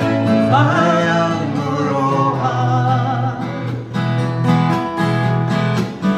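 Two acoustic guitars strummed together with singing; a held, wavering vocal line comes in about half a second in and fades by about three and a half seconds, the guitars carrying on underneath.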